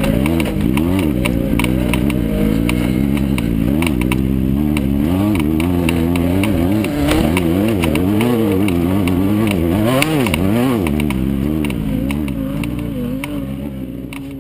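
Class 9 off-road race car's air-cooled Volkswagen engine running hard, its pitch swinging up and down again and again, with many sharp rattles and knocks; the sound fades down near the end.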